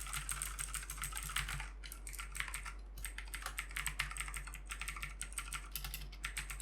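Fast typing on a mechanical keyboard with clicky Kailh blue switches: a dense run of sharp key clicks, with short breaks about two and three seconds in.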